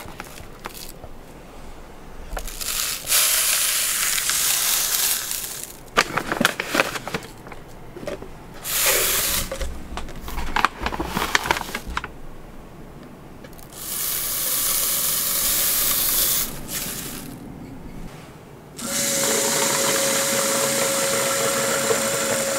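Coarse salt poured through a rolled-paper funnel into plastic bottles, heard as several hissing pours a second or two long, with clicks from handling the bottles and scoop between them. From about 19 s, tap water runs steadily into a plastic bottle as it fills, with a held tone in the rush.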